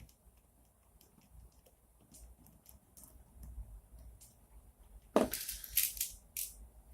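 Small screws and nuts being handled against acrylic frame plates: faint scattered clicks, then a louder cluster of clicks and clatter about five seconds in.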